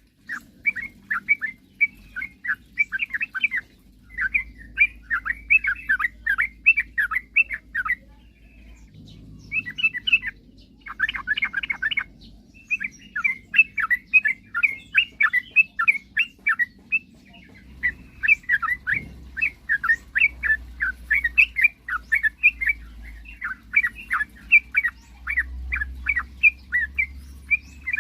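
Yellow-vented bulbul singing: rapid runs of short bubbling, chattering notes, repeated phrase after phrase with brief pauses.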